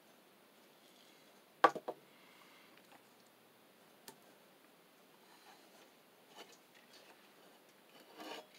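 Spring-loaded desoldering pump (solder sucker) snapping once, its plunger released, with a smaller click just after. Later a faint click and soft handling noises as the circuit board is turned over.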